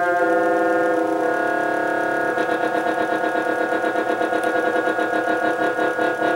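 Beauchamp Harmonic Tone Generator emulator, an electronic instrument, sounding held notes with many steady overtones. The notes shift about a second in. From about two and a half seconds in the tone pulses and wavers quickly and grows brighter as the panel knobs are turned.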